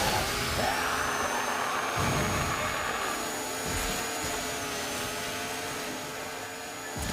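Chainsaw engine sound effect running at high revs, a steady motor drone with a high whine that rises over the first second and then holds.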